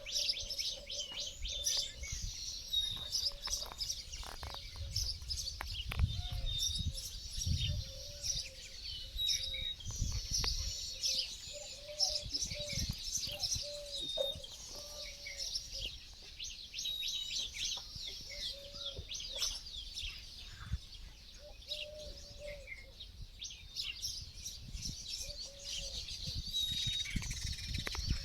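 Small bird chirping and twittering almost without pause, in quick high notes.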